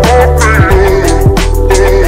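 Hip hop music with a steady beat and deep bass.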